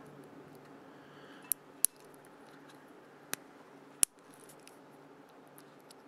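Light metal clicks of a cut-down paperclip working in the pin hole of a Molex connector, pressing in the locking tabs on a crimped terminal: four sharp clicks spread over a few seconds.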